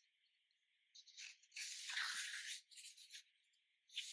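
Faint rustling of paper pages being turned in a thick booklet: a quiet start, then a longer rustle about a second and a half in, followed by a few shorter ones.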